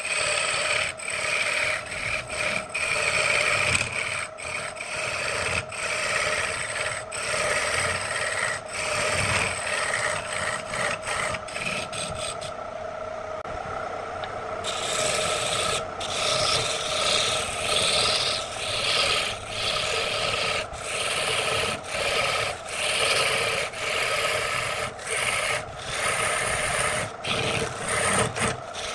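A turning tool cutting into a spinning wooden blank on an electric wood lathe: a rough scraping hiss broken by frequent short pauses as the tool is eased on and off, over a steady hum from the running lathe. About twelve seconds in the cutting stops for a couple of seconds, leaving only the hum, then starts again.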